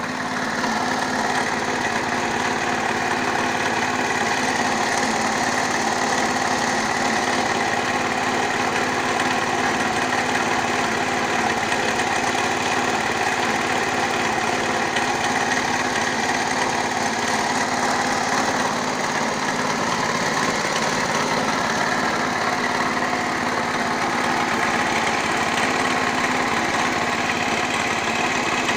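Walk-behind tractor engine running steadily, picking up slightly just after the start, with a knock that the owner calls suspicious.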